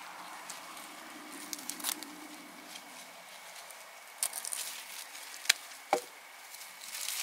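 Leafy garden plant stalks rustling and snapping as they are pulled up and gathered by gloved hands, with a few sharp cracks of breaking stems in the second half.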